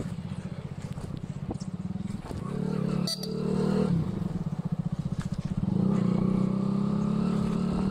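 Motorcycle engine running as the bike is ridden, a fast even pulsing note that rises as it speeds up about two seconds in, drops back near four seconds, and climbs again from about six seconds. A sharp click about three seconds in.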